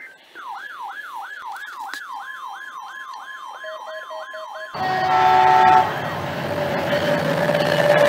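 An electronic alarm from a weather alert radio wails rapidly up and down, about three sweeps a second, with a few short beeps near its end. Then a Caltrain diesel locomotive's horn sounds for about a second, the loudest part, followed by the rumble of the train passing.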